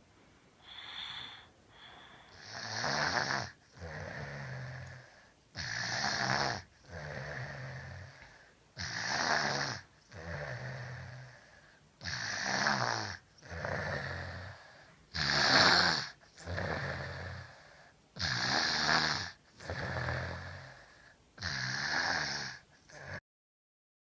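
A small child snoring heavily in sleep. There is a loud, rattling breath about every three seconds, seven in all, with softer breaths between them, and the sound cuts off suddenly near the end. It is typical of a young child whose airway is narrowed by enlarged adenoids and tonsils.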